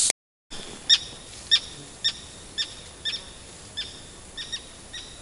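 Gulls giving alarm calls: short, sharp notes repeated about twice a second, slowly fading. The birds are mobbing a person near their chicks, apparently taking him for a threat to their young.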